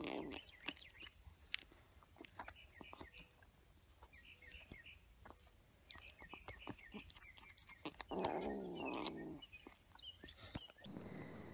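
A kitten eating dry kibble from a bowl: quick crunches and clicks throughout, with faint high chirps between. About eight seconds in, the kitten gives a louder, rough, low cry lasting a second or so.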